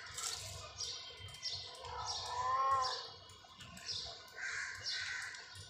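Birds chirping over and over in short, high, falling notes. About two seconds in, one louder, drawn-out call rises and falls in pitch.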